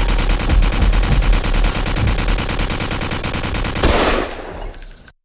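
Rapid machine-gun fire sound effect, a fast unbroken string of shots over a steady low hum. Near the end the shots stop, a short noisy burst fades away, and the sound cuts off.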